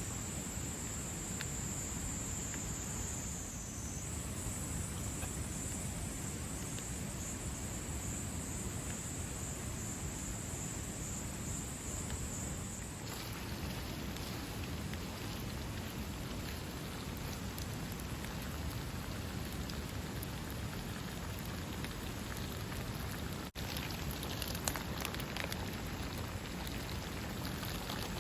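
Steady, even noise of water, with scattered small ticks. A steady high insect trill runs through the first half and stops abruptly about halfway through.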